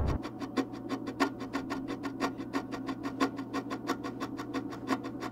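Edited soundtrack: a heavy bass cuts out just after the start, leaving a fast, even ticking of about seven clicks a second over a faint steady low tone.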